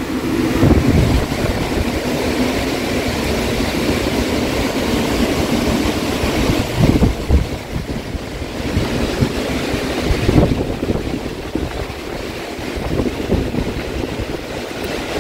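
Storm wind blowing hard and in gusts through trees, with a continuous rushing roar and low rumbles on the microphone.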